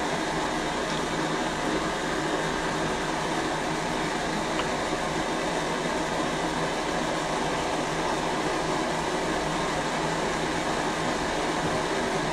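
Steady hum and hiss of a running fan, even throughout, with a couple of faint ticks.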